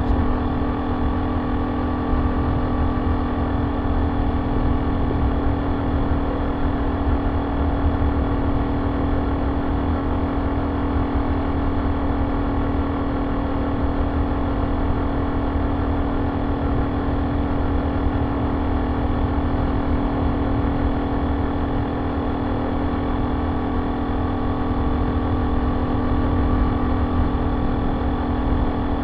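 Honda C70's small four-stroke single-cylinder engine running through an aftermarket banana-type ("pisang") exhaust as the motorcycle cruises. The exhaust note holds a steady pitch.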